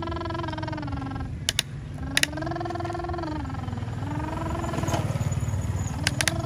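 A child making engine noises with his voice: a long, buzzy lip-trill drone whose pitch slides up and down, broken by a couple of short pauses. A few sharp plastic clicks come through it, twice early on and twice near the end.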